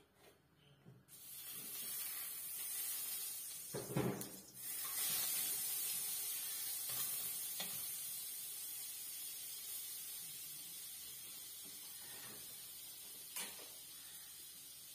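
Margarine sizzling in a hot wok: a hiss that starts suddenly about a second in as it hits the pan, then slowly dies down as it melts. A knock of the spoon or spatula against the wok about four seconds in, and a few lighter clinks later.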